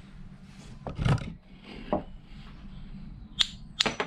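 A few knocks and clinks of metal tools and work being handled at a steel bench vice: the loudest knock about a second in, a sharp ringing metal click about three and a half seconds in.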